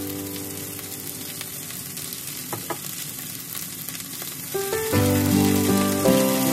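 Green beans sizzling in a hot frying pan as a dark sauce is poured over them. Guitar background music fades out at the start and comes back in about five seconds in, louder than the sizzle.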